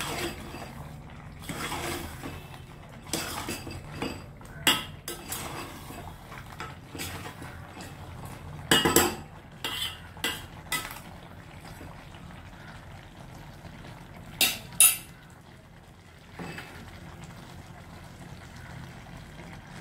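A ladle stirring a thick chicken masala in a stainless steel pot, scraping and clinking against the metal at irregular moments, with a few louder knocks against the pot about a third of the way in, halfway, and about three-quarters of the way through.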